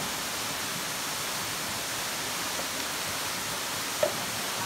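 Steady rush of a shallow forest stream running over rocks and fallen logs, with one short sharp knock near the end.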